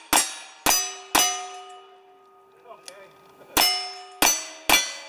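Single-action revolver shots at steel targets, each crack followed by the ring of a struck steel plate. Three shots come about half a second apart, then a pause of about two and a half seconds, then three more.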